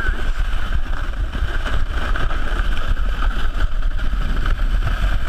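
Plastic sled sliding fast over snow, a steady rough scraping rumble picked up by a camera riding on the sled.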